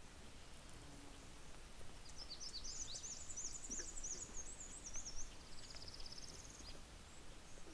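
A small songbird singing one high-pitched song: a quick run of sharp up-and-down notes that ends in a buzzy trill, starting about two seconds in and lasting roughly four and a half seconds, over faint outdoor background hiss.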